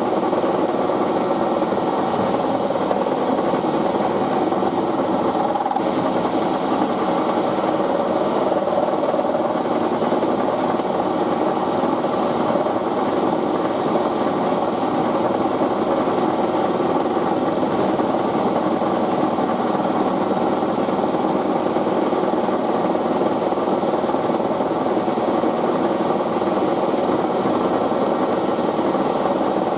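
Milling machine cutting an off-centre arc in an aluminium part, the cutter and spindle running steadily without a break.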